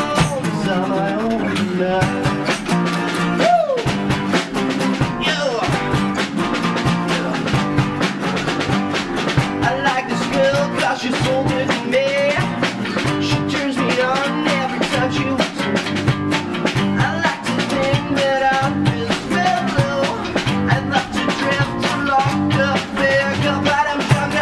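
Acoustic rock band playing live: strummed acoustic guitars, bass guitar and a drum kit together at a steady beat, with some sliding melody notes over the top.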